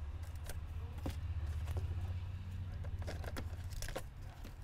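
Scattered light clicks and small rattles of small parts being handled, over a steady low hum.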